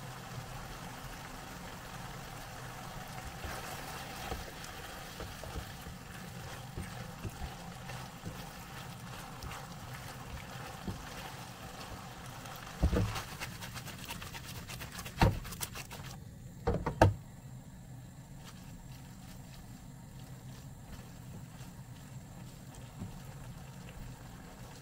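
Spaghetti, asparagus and scallops simmering in a nonstick frying pan, a steady low hiss. Midway through they are tossed with a spatula, with a few sharp knocks against the pan, and then the hiss grows quieter.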